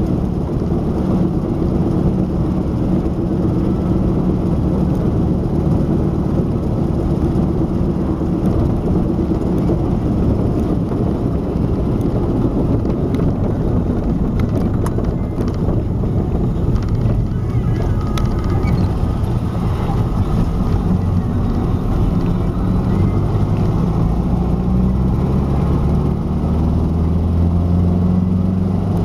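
GAZ M20 Pobeda rear axle humming under steady road and engine noise while driving. It is a cyclic noise that follows road speed and is there even when coasting, which the owner likens to a steam locomotive. Near the end a lower hum grows louder and rises in pitch.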